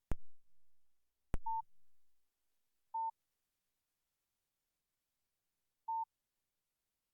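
Two sharp clicks with short low thuds, then three short electronic beeps at one steady mid pitch, spaced unevenly, from a Nokia 2730 classic mobile phone.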